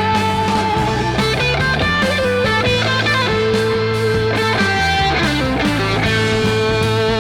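Hard rock record playing from a vinyl LP: electric guitar lead with long held notes and quick runs of notes, over bass and drums.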